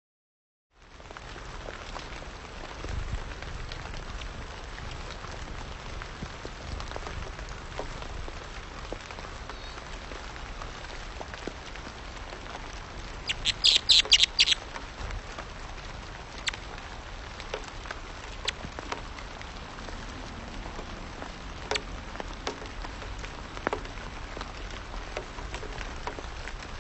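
An Anna's hummingbird gives a quick burst of sharp, high chips up close, about halfway through. Under it is a steady low outdoor rumble with scattered faint ticks.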